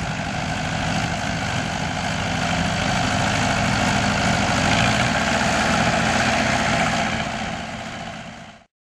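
A 1963 Aktiv combine harvester running steadily, a low, even engine drone with machinery noise over it. It fades and cuts off shortly before the end.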